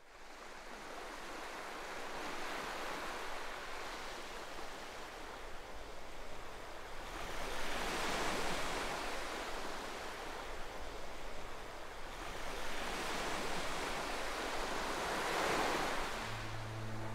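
Waves washing on the open water of the Yangtze estuary: a rushing sound that fades in and swells and eases every few seconds. Music comes in near the end.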